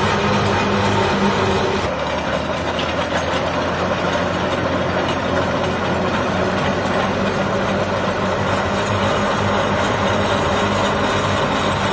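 Tractor's diesel engine running steadily under load, driving a rear-mounted auger pit digger boring holes in the soil.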